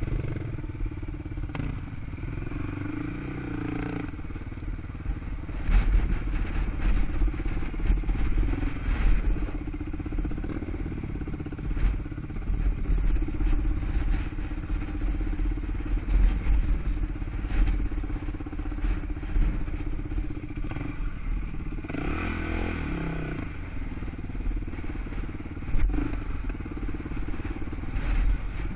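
ATV (quad) engine running steadily while riding, its pitch rising and falling briefly about three-quarters of the way through.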